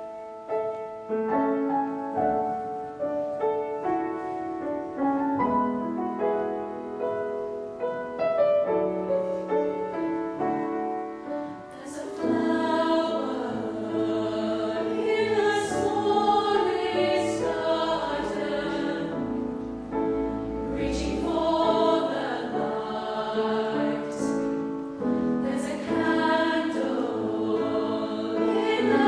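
Youth choir singing with piano accompaniment. The piano plays alone for about the first twelve seconds, then the voices come in.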